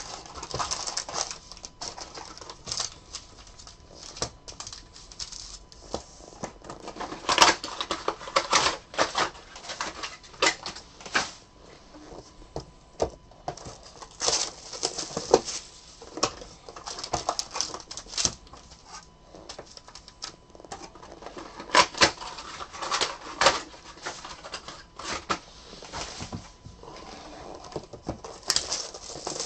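Cardboard hobby boxes being opened by hand and the trading-card packs pulled out and stacked. It is a steady stream of irregular cardboard rustles, taps and clicks, with a few sharper knocks where packs and boxes meet the table.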